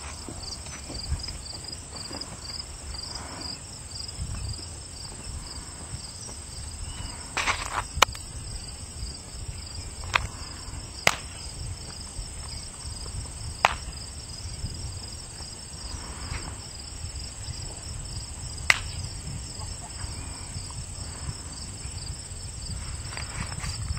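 Insects, likely crickets, chirping steadily in a fast, even pulse. Several sharp, single clicks stand out above it, scattered a few seconds apart.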